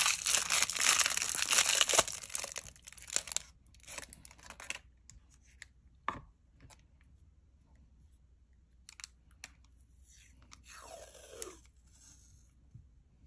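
Masking tape being peeled off its roll with a crackling tearing sound for about three seconds, followed by scattered light clicks and rustles of handling, and a shorter rustle near the end.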